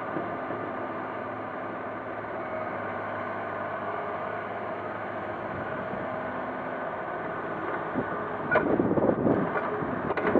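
Hydraulic crawler excavator's diesel engine running steadily under load as the machine swings and lowers its boom. About eight and a half seconds in there is a sharp tick, then a louder rough noise until the end.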